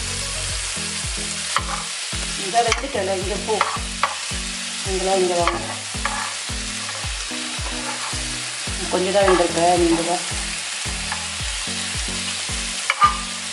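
Marinated sardines shallow-frying in coconut oil in a non-stick pan, sizzling steadily, while a metal spoon stirs and turns them, scraping against the pan now and then.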